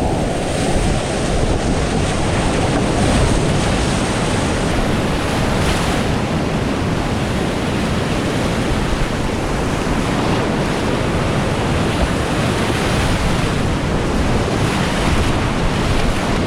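Loud, steady rush of big whitewater rapids heard up close from a kayaker's life-jacket-mounted camera, with water crashing and splashing around the boat and noise on the microphone.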